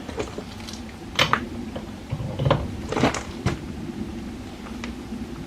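Breaker bar and socket extensions clanking and knocking as they are worked against tight lug nuts on a car wheel, a series of separate sharp knocks over a steady low hum.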